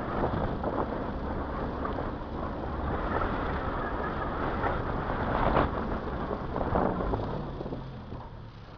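Car driving along a town street: steady engine and road rumble with wind buffeting the microphone, and knocks and rattles over bumps, the loudest about five and a half seconds in. The noise eases off near the end.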